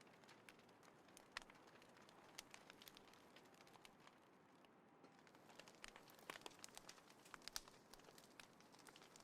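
Small wood fire crackling, with irregular sharp pops and snaps over a faint hiss; the pops come thicker in the second half.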